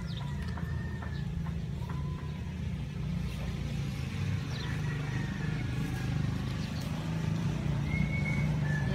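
A motor vehicle engine running steadily, a low rumble that grows slowly louder, with faint bird calls above it.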